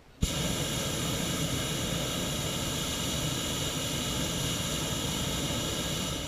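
Hot air balloon's propane burner firing in one long blast of about six seconds: a loud, steady rush that starts abruptly and cuts off sharply.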